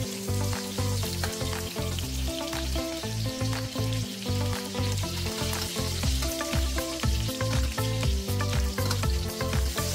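Breaded cod fillets sizzling steadily as they fry in butter and olive oil in a stainless steel pan. Short clicks and scrapes come as a spatula and fork turn the fillets. Background music with low, steady notes plays underneath.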